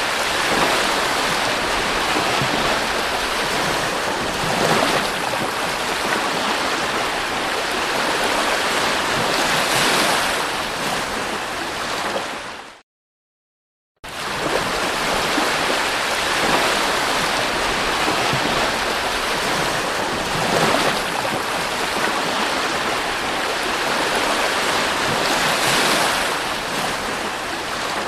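Sea waves washing onto a beach, a steady rush that swells every few seconds; it cuts to silence for about a second partway through, then resumes.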